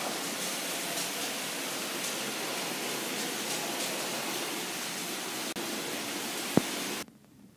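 Model freight train running on the layout's track: a steady rushing noise with faint irregular ticks. A single sharp knock comes near the end, and just after it the noise cuts off suddenly.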